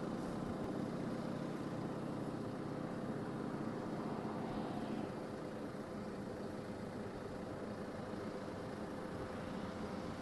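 An engine running steadily, a low drone with a constant hum.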